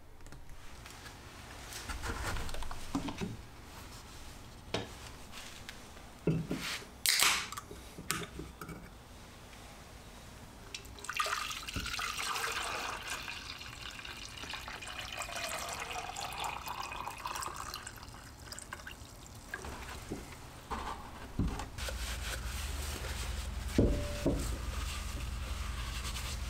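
Water poured from a plastic gallon jug into a plastic graduated cylinder, splashing for several seconds, as warm water is measured out for mixing D-76 film developer. Knocks and clicks of plastic containers being handled come before it, and a low steady hum begins near the end.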